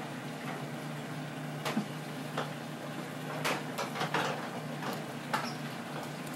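Knife working against a plastic cutting board while a fish fillet is skinned: a handful of short sharp clicks and taps scattered over a steady low background hum.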